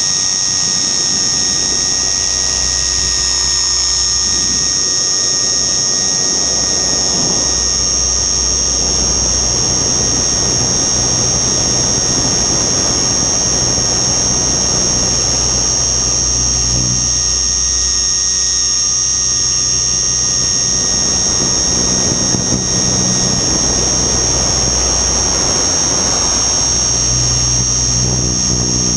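Radio-controlled helicopter in flight: a steady high-pitched whine over a low rotor hum that shifts up and down with the throttle, with rushing wind noise that swells and fades.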